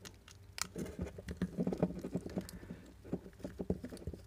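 A small screwdriver turning out a screw that is corroded into a plastic light housing: a quick, irregular run of small clicks and scrapes as the screw works loose.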